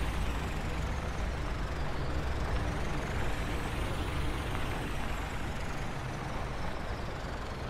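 Cartoon sound effect of a truck engine running steadily while driving, with a low rumble and a faint rising-then-falling whoosh in the middle.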